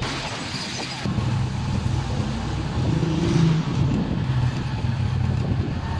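Small motorcycle engine running at riding speed, the note lifting briefly about halfway through, with road and wind noise.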